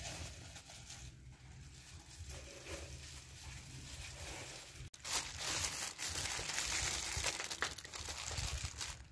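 Clear plastic food gloves crinkling and rubbing against a wire-mesh sieve as a hand squeezes a pounded paste through it. Louder and closer from about five seconds in.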